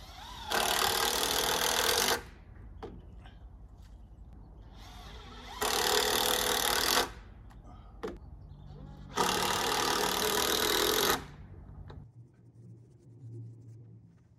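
A handheld power tool runs in three bursts of about two seconds each, starting and stopping abruptly, while wall framing is put together. A steady low hum runs underneath and stops near the end.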